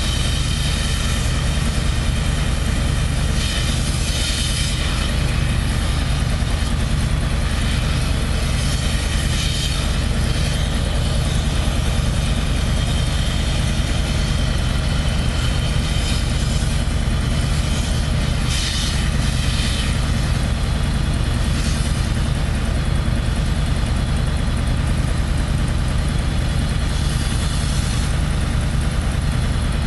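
Diesel engine of the work plant running steadily at idle with a low, even drone. Brief bursts of hissing about four seconds in and again around nineteen seconds.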